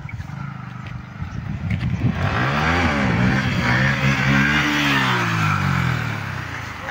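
A motor vehicle drives past. A low engine rumble grows into a loud pass about two seconds in, with the engine note falling steadily as it goes by and a rushing tyre and wind hiss, then fades near the end.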